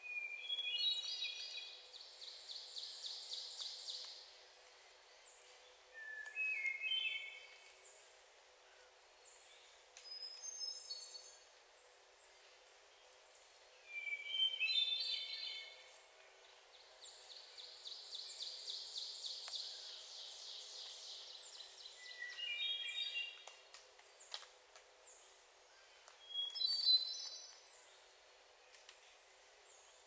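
Hermit thrush singing: six separate phrases a few seconds apart, each starting on a held lower note and climbing into a quick run of higher notes, every phrase at a different pitch. Another bird's rapid, even trill runs for a few seconds about a second in, and again for longer in the middle.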